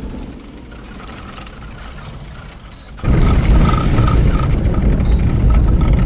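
Minibus engine and road noise while riding up the road; a much louder, deeper rumble cuts in abruptly about three seconds in.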